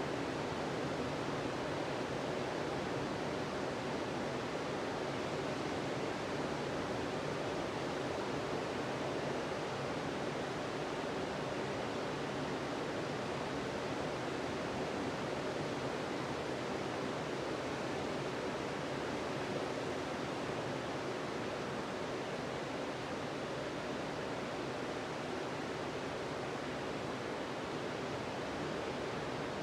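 Sea surf washing steadily onto a beach, a continuous wash of breaking waves.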